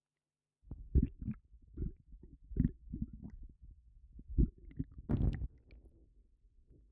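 Bloated, upset stomach gurgling: a run of irregular low rumbles and squelches, with a longer gurgle about five seconds in.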